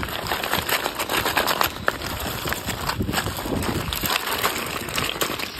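Hollow plastic ball-pit balls clattering and rattling against each other as bare feet wade and shuffle through them, a dense run of small clicks.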